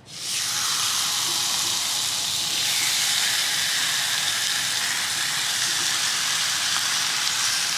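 Skin-on, bone-in chicken thighs sizzling in hot oil in a frying pan as they are laid in skin side down. The frying hiss is steady and even.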